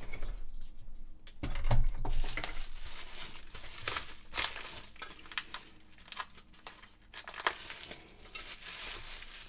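Plastic bag crinkling and rustling as a floppy drive is handled and unwrapped, with scattered small knocks. The loudest moment is a heavier bump about a second and a half in.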